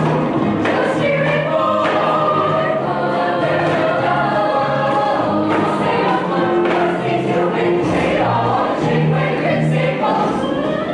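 A musical-theatre cast singing a show tune together in chorus, with musical accompaniment, at a steady level.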